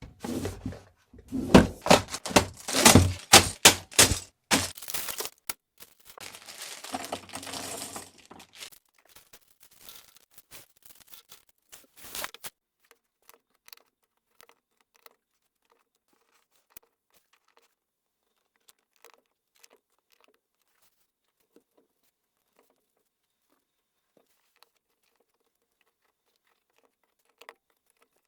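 Packaging torn open and crinkled in a rapid crackling run for several seconds, followed by faint, scattered small clicks.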